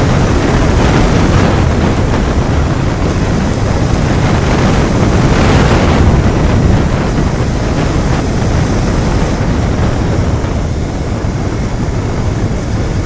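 Royal Enfield Continental GT 650's parallel-twin engine running on its stock exhaust while riding, mixed with steady wind noise on the microphone.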